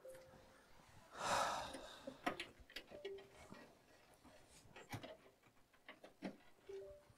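Faint scattered clicks, with a short breathy rush about a second in.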